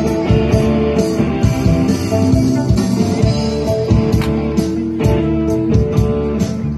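Live rock band playing an instrumental passage: plucked oud and guitar lines over bass guitar and a drum kit keeping a steady beat.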